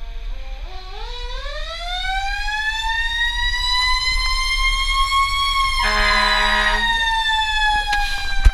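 Fire truck siren heard from inside the cab, rising slowly in pitch for about five seconds and then slowly falling. A horn blast of about a second cuts in over it just past the peak, with a steady low rumble underneath.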